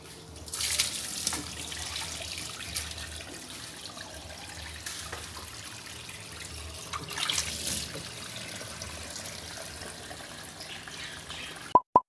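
Dirty wash water draining out of a Colormaq semi-automatic washer (tanquinho) through its corrugated drain hose and splashing onto a tiled floor at a floor drain. It pours steadily, with heavier splashing about a second in and again around seven seconds. Right at the end a quick run of short electronic beeps starts.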